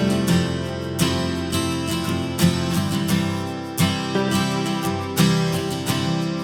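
Background music led by strummed acoustic guitar with a steady beat.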